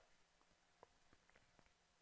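Near silence, with one faint computer-mouse click a little under a second in and a few fainter ticks after it.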